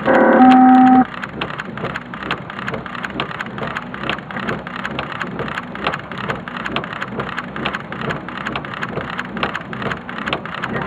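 Heavy thunderstorm rain: a steady hiss with dense sharp ticks of raindrops striking close to the microphone. At the very start a loud steady electronic-sounding tone sounds for about a second and cuts off.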